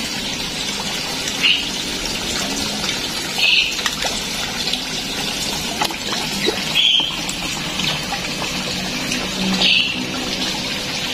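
Steady rush and splash of running water. A short, high bird chirp cuts through it four times, a couple of seconds apart.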